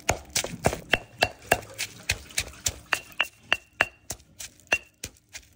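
Stone pestle pounding in a granite mortar, about three strikes a second, some with a short high ring. The mortar holds roasted queen ants, chilies, garlic and shallots being pounded into a chili paste.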